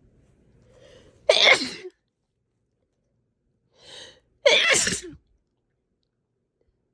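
A person sneezing hard twice, about three seconds apart; each wet sneeze comes after a short audible in-breath.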